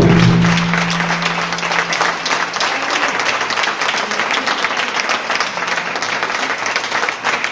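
Audience applauding steadily. It opens on a last loud stroke of the lion-dance percussion, whose low ring fades over the first two seconds or so.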